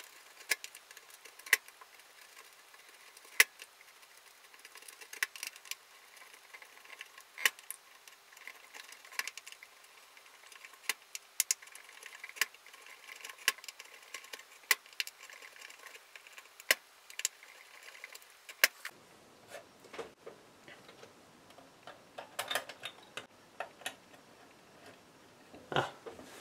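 Irregular sharp clicks and taps of fingers handling a small circuit module on a preamplifier's printed circuit board, pressing and working it into place.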